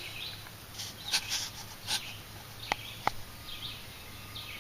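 Short rustling swishes, like steps through dry brush, then two sharp snaps about a second apart, with small birds chirping faintly.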